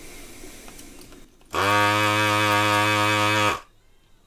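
Electric desoldering gun's built-in vacuum pump switched on for about two seconds, a loud, steady buzzing hum that starts and stops abruptly, sucking molten solder out of a resistor's joint on a circuit board.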